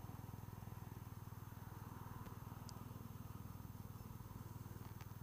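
Faint, steady low hum with a fast, even pulse, picked up through a helmet Bluetooth intercom microphone.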